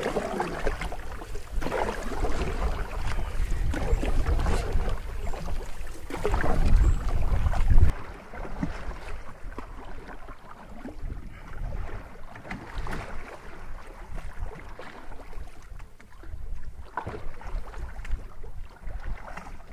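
Canoe being paddled through choppy, windblown water: paddle strokes and waves splashing and slapping against the hull, swelling every couple of seconds. Wind rumbles on the microphone until it drops sharply about eight seconds in.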